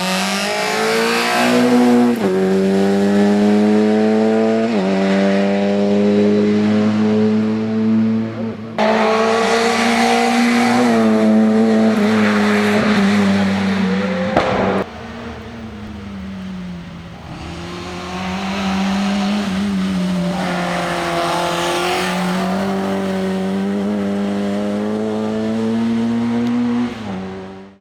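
VW Golf Mk1 rally car's engine under hard acceleration, the pitch climbing as it revs out and dropping back at each upshift. About halfway through it eases off for a couple of seconds, then pulls hard again.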